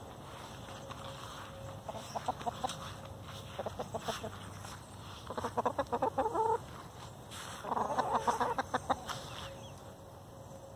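Backyard hens clucking in four bursts of rapid clucks, the last two longer and louder.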